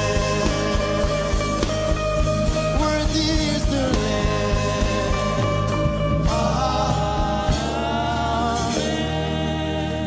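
Worship music: a voice holds long, wavering notes over instrumental backing. A steady drum beat drops out about six seconds in, leaving sustained tones.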